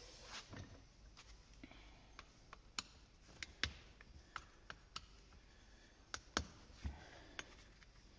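About a dozen faint, irregularly spaced sharp metallic clicks and taps from a hand tool working on a Husqvarna 136 chainsaw's ignition coil beside the flywheel, as the coil is loosened.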